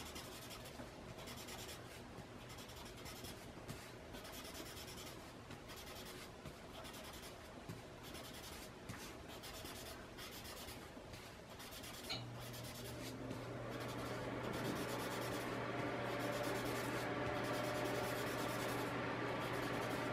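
Paper blending stump rubbing graphite shading into a paper tile in short, repeated strokes. About twelve seconds in, after a click, a steady hum comes in under the rubbing and stays.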